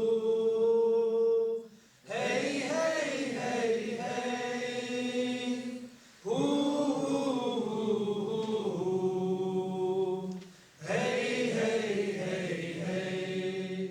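A group of voices chanting unaccompanied in repeated phrases of about four seconds, each holding long notes, with short breaks between the phrases.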